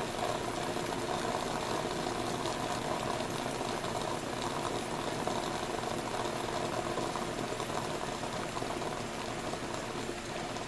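Small home espresso machine brewing into a mug: a steady hiss as coffee and steam spurt from the group head.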